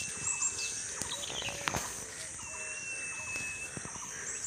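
Rural outdoor ambience: a steady high insect buzz with a few short bird chirps and a long, thin, steady whistle heard twice. A single sharp click sounds a little past halfway.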